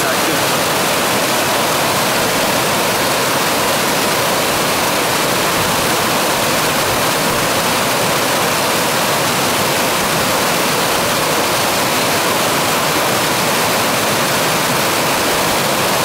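River water rushing and churning over rocks in a fast cascade, a loud, steady roar of white water.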